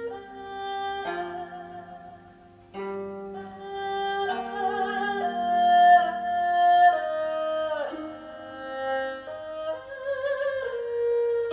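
Recorded music, an instrumental interlude: a bowed string melody of held notes with vibrato and sliding pitch, with one marked downward slide about eight seconds in, over low sustained accompaniment, played back through a hi-fi speaker.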